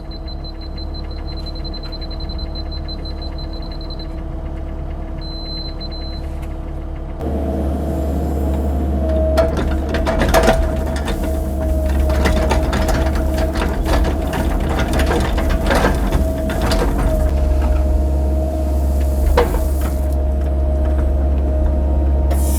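CAT 308 mini excavator running, its engine humming steadily, with a rapid high-pitched beeping for the first few seconds. About a third of the way in the engine throttles up as the machine works, with scattered clanks and knocks from the bucket handling rock.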